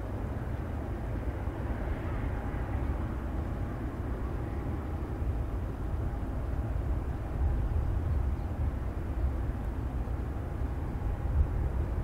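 Wind buffeting the microphone in a steady low rumble, over a faint steady whine from a Boeing 737 airliner being pushed back by a tug.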